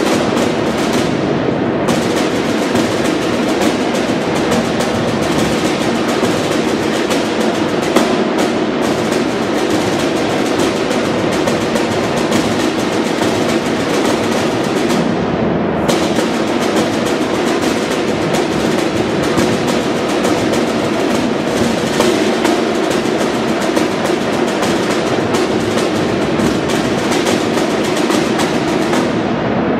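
Marching band snare drums playing continuous rapid rolls and rudiments, a dense stream of strokes without a pause.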